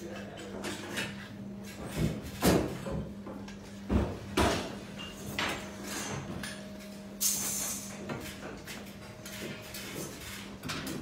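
Workshop clatter: several sharp knocks and clunks of tools and copper pipe being handled on a hard floor, with a brief hiss about seven seconds in, over a steady low hum.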